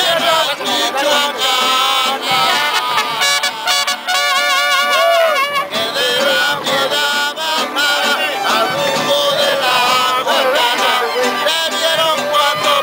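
Mariachi band playing live: singers with a wide, wavering vibrato over strummed acoustic guitars.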